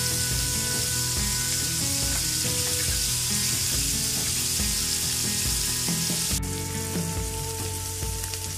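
Pompano fillets sizzling steadily as they fry in butter in a skillet over medium heat, with background music playing underneath.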